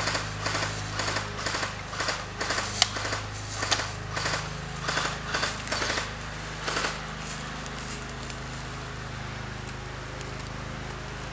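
Footsteps at a walking pace, about two steps a second, with a couple of sharp snaps among them; they stop about seven seconds in. A steady low hum runs underneath.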